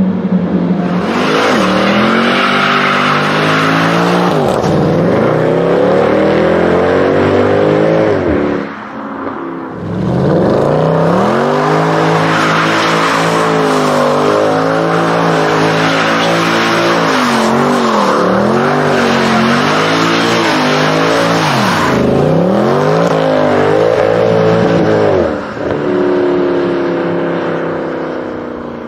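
Supercar engine revving hard through the gears: the pitch climbs, drops sharply at each shift and climbs again, over and over. The revving lets off briefly about nine seconds in and again near the end.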